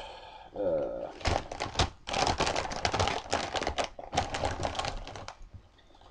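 Crinkling and crackling of a foil potato-chip bag being handled and turned over, a dense run of crackles lasting about four seconds, preceded by a brief murmur of voice.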